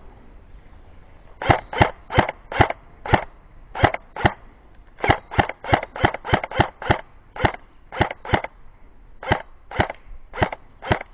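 Airsoft gun firing single shots, about twenty sharp cracks in quick irregular succession, often two or three a second, starting about a second and a half in.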